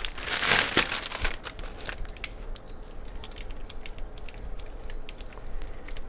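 Plastic bag crinkling for about the first second, then a block of mozzarella being grated on a handheld cheese grater: quieter, irregular scraping strokes and light ticks.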